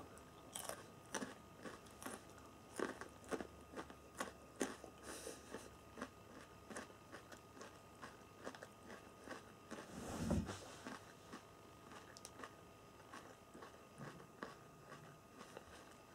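A person biting and chewing raw garlic cloves: quiet, irregular crunches and wet mouth clicks. There is one louder rush of noise about ten seconds in.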